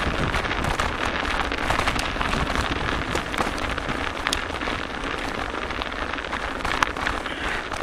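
Mountain bike ridden along a snow-dusted gravel trail: a steady crackling rush of tyres on gritty frozen ground, with many sharp rattles and knocks from the bike, and wind rumbling on the microphone.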